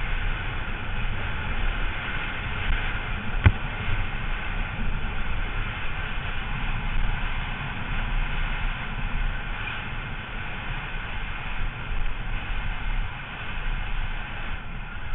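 Rushing wind and tyre rumble from a downhill mountain bike ridden fast over loose dirt and gravel, heard on the bike's point-of-view camera, with one sharp knock about three and a half seconds in.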